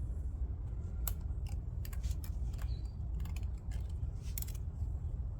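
Light metallic clicks at irregular intervals as a band clamp is handled and fitted around a CV axle boot by hand, over a steady low hum.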